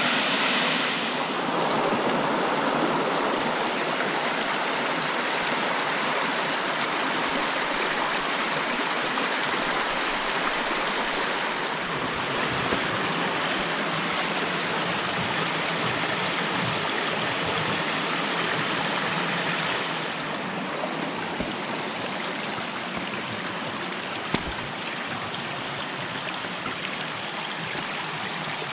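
Rushing stream water in a steady, even hiss. The water sound changes character about a second in and again about twenty seconds in, a little quieter after the second change, with one faint click a few seconds before the end.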